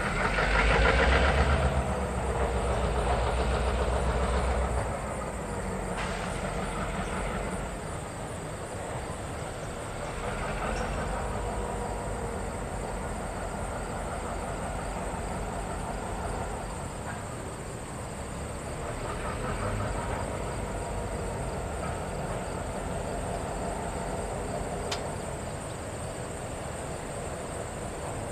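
Diesel locomotive and freight cars moving during switching. The engine rumble is loudest for the first few seconds, then settles to a steadier, lower running sound.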